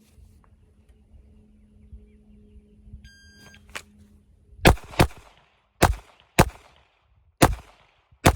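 A shot timer beeps once, and about a second later six handgun shots follow in three pairs. The first pair is fired quickly, the second a little slower, and the last pair is slower still and more deliberate.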